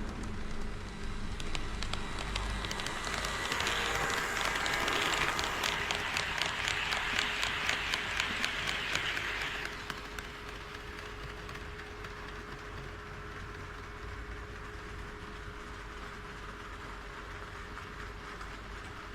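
HO scale model train running past on KATO Unitrack, its wheels clicking evenly over the rail joints, about two to three clicks a second. The sound drops about ten seconds in to a quieter steady running noise as the train moves away.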